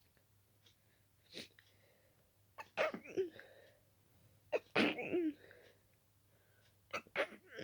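A woman's sneezing fit: three sneezes in quick succession, about two seconds apart, with a smaller sharp sound before them. The sneezes come from an intensely itchy nose, an allergic reaction to dust.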